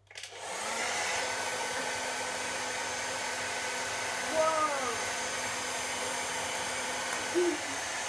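Handheld hair dryer switched on, its motor spinning up over the first half-second, then blowing steadily with a constant rush of air and a faint hum, holding a ping pong ball up in its airstream. A brief falling tone comes about halfway through, and a short blip near the end.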